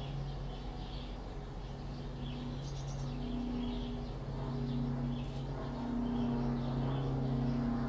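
Chicks peeping faintly, a few short high calls a second, over a steady low hum.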